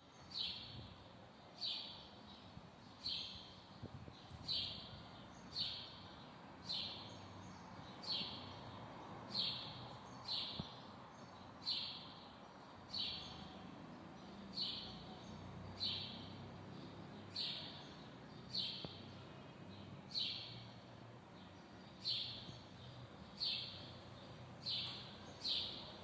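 A small songbird calling over and over: one short, high chirp repeated about every second and a half, with a faint steady outdoor background beneath.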